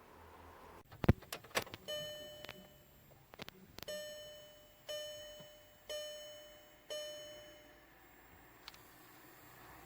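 Škoda Octavia II's dashboard warning gong chiming about once a second, five times, each chime fading away. It is preceded by a few sharp clicks.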